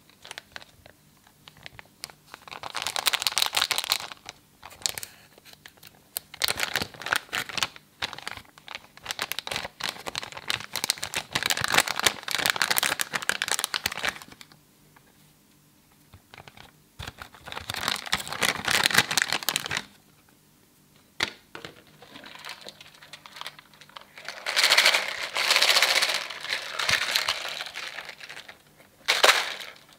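Metallic foil confetti flakes crinkling and rustling as hands stir and dig through them. The sound comes in spells of a few seconds with quieter pauses between, dense with tiny crackles and clicks.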